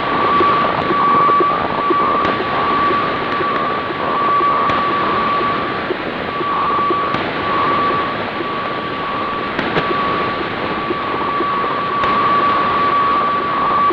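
Grundig 750 shortwave receiver playing an HF radiofax (weather fax) transmission on upper sideband: a steady tone over even hissing static.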